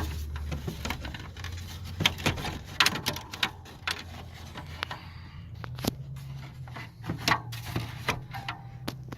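Plastic dash trim cover being handled and pressed back into place on a Chevy truck dash: scattered sharp plastic clicks, knocks and rubbing, over a low steady hum.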